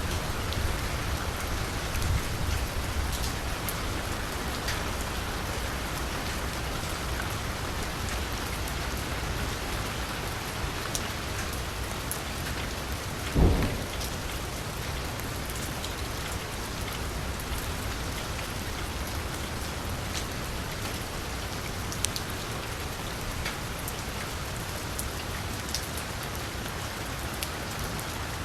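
Steady rain falling on a street, with a constant hiss and scattered individual drops ticking close by. About halfway through comes one short, dull thump, the loudest moment.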